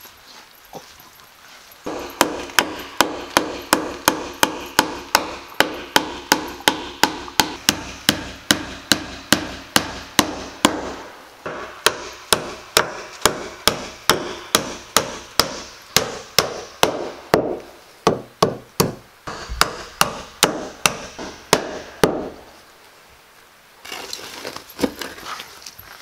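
Hammer driving nails into a wooden block on a plank wall: a steady run of sharp blows, about three a second, that stops near the end.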